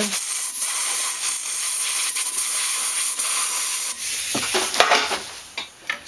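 Compressed-air blow gun blasting a steady hiss into a freshly drilled hole, clearing metal shavings out of a door-closer cylinder. About four seconds in the hiss changes and there are a couple of knocks, then it tails off near the end.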